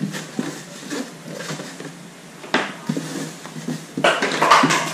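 A styrofoam growbox handled on a table: scattered rubbing and light knocks. About four seconds in comes a louder scrape and rub as the box is turned around.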